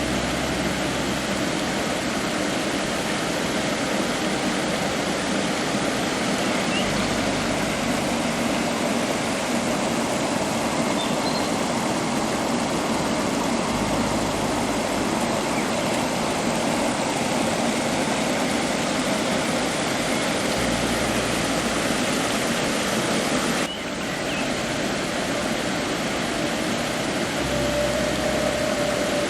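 Steady rushing of river water and a waterfall, an even continuous wash of noise, with a faint low rumble swelling about every seven seconds.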